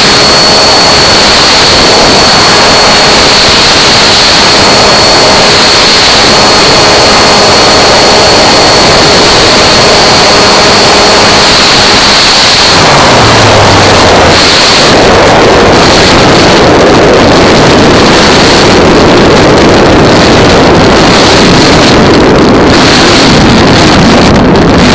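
Onboard sound of a 40-size radio-control model airplane's engine running at high revs, a steady high whine over heavy wind rush on the microphone, distorted by its loudness. About halfway through, the whine weakens and breaks up, leaving mostly wind rush.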